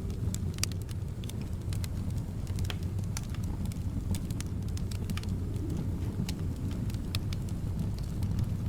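Wood fire crackling in a fireplace, with irregular sharp pops and snaps over a steady low rumble of flames and soft wind.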